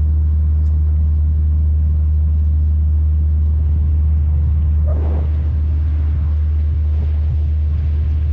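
Cruise boat's engines running with a steady low drone, heard on board.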